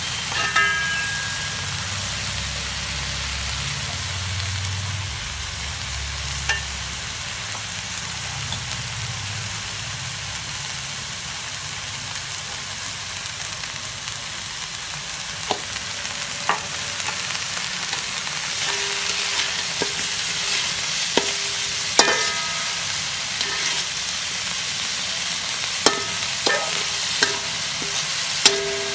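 Pork pieces with ginger frying in oil in a metal wok, giving a steady sizzle. From about halfway through, a metal spatula stirring the meat scrapes and clanks against the wok several times, some strikes ringing briefly.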